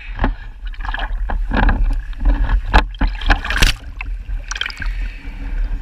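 Sea water splashing and sloshing around a freediver swimming out at the surface, close to a speargun-mounted camera that keeps breaking the waterline, with irregular splashes over a steady low rumble.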